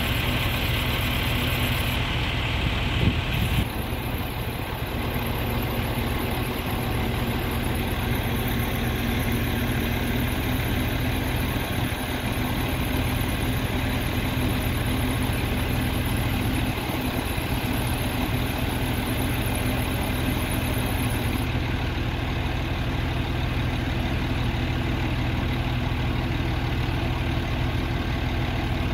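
Diesel engine of a truck-mounted crane idling steadily, with a brief louder noise about three seconds in.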